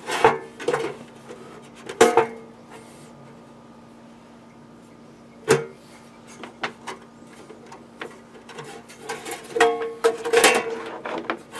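Sheet-metal cover of an old Cisco router being slid and worked onto its chassis: scattered metallic knocks and scrapes, with a few sharp clanks. They come thicker in a burst near the end.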